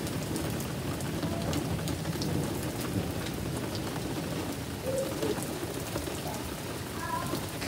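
Thunderstorm rain falling steadily, with a continuous low rumble and many small drop ticks.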